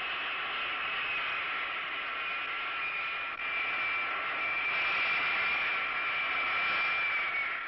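Dassault Étendard IV's turbojet running on deck: a steady rushing noise with a high turbine whine, which drifts slightly lower near the end.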